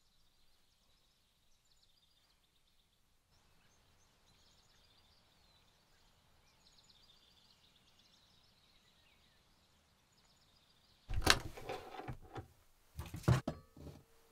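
Faint high birdsong, thin chirps and trills, over near silence; then, about eleven seconds in, a sudden clatter and knocking as a hinged wooden overhead cabinet door is opened and items are handled inside, with more sharp knocks near the end.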